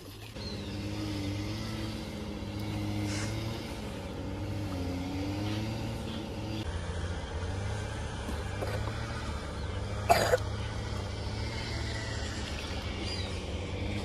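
A steady low engine hum whose pitch wavers a little in the first half, with one brief sharp noise about ten seconds in.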